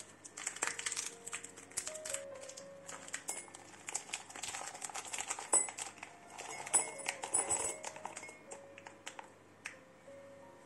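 Plastic tea sachet crinkling in the hands as it is opened and its contents tipped into a ceramic mug, over soft background music.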